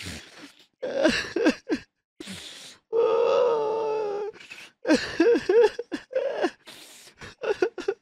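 A person crying: broken, catching sobs and gasping breaths, with one long wailing sob about three seconds in, followed by a run of short sobs.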